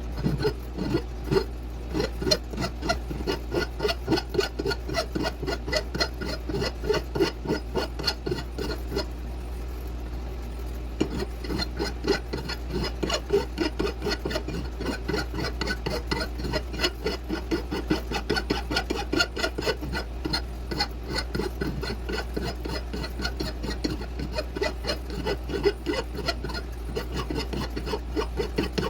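Hand rasp worked back and forth over wood in steady scraping strokes, about two a second, with a short pause about ten seconds in.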